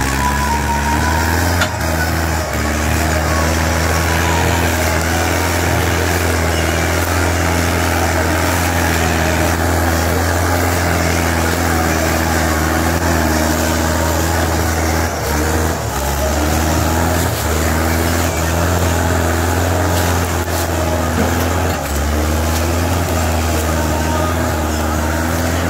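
Mahindra Arjun 605 tractor's four-cylinder diesel engine labouring as it pulls a heavily loaded sugarcane trailer across soft field ground. A steady low drone runs under a pitch that rises and falls repeatedly as the revs change.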